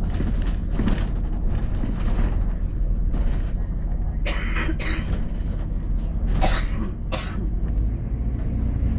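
Double-decker bus running through town, heard from inside: a steady low engine and road rumble. Two pairs of short harsh bursts cut in, about four and about six and a half seconds in.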